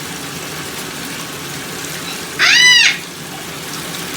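Pet parrot giving one loud, arching squawk about two and a half seconds in, over the steady hiss of running tap water.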